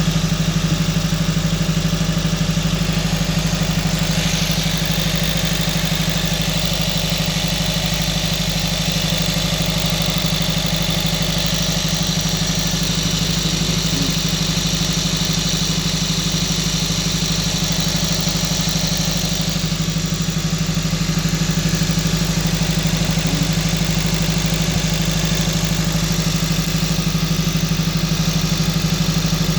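2012 Honda Civic Si's 2.4-litre four-cylinder engine running steadily at high idle with a misfire. The scanner flags all four cylinders, but a scope shows only the No. 4 injector failing, which the owner puts down to a faulty ECM.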